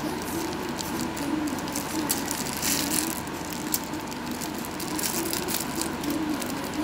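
Thick, lumpy date bread batter being scraped and tipped from a plastic container into paper loaf pans with a plastic spatula: soft scraping and small clicks over a steady background hum.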